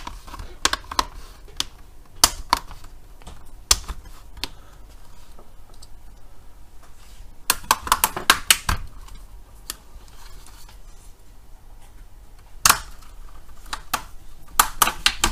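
Plastic pry tool working around a laptop's display lid: sharp plastic clicks and snaps, some single and some in quick clusters about halfway through and again near the end.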